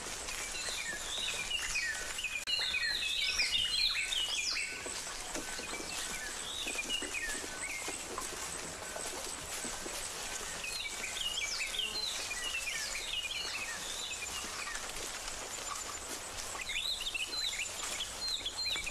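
Outdoor ambience of birds chirping in clusters of quick high calls, over a steady background hiss with a faint thin high tone.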